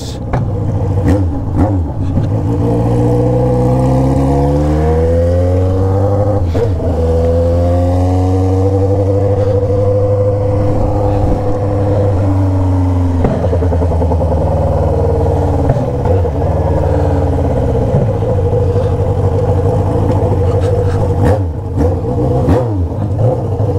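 Yamaha XJ6's 600 cc inline-four running through a 3-inch straight-pipe 4-into-1 exhaust while being ridden. The note rises and falls with the throttle and breaks briefly at a few gear changes, then gives a few short blips near the end.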